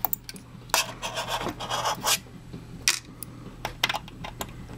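Screwdriver turning small screws out of an aluminium laptop bottom case, making irregular scrapes and clicks of metal on metal.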